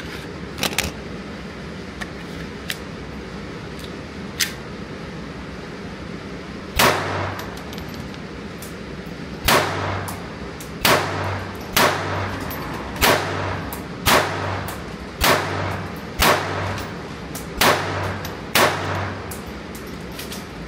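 Semi-automatic pistol fired ten times at a steady pace, about one shot a second, each shot ringing on briefly in an indoor range. A few fainter sharp cracks come in the first few seconds.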